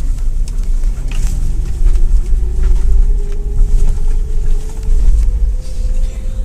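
Car cabin noise while driving slowly: a steady low rumble of engine and road, with a faint steady hum over it.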